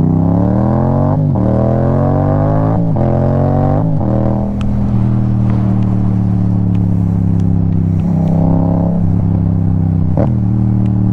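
Motorcycle engine accelerating hard through the gears. The pitch climbs and drops back at three quick upshifts in the first four seconds, then holds steady at cruising speed.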